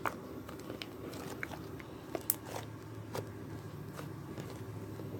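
Homemade slime being squeezed and poked by hand for ASMR, giving irregular small pops and clicks as air pockets in it burst.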